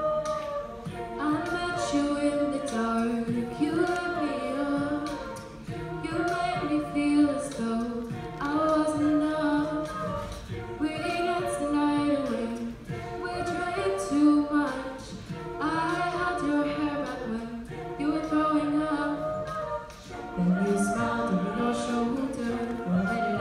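A cappella group singing live: a female lead voice over sustained backing harmonies from the group, with beatboxed vocal percussion keeping a steady beat.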